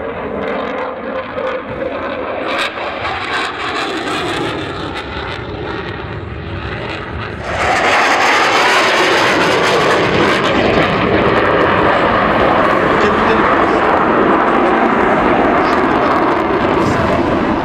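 Military jet aircraft flying overhead, its engine making a loud, steady rushing noise that jumps abruptly louder and brighter about seven and a half seconds in.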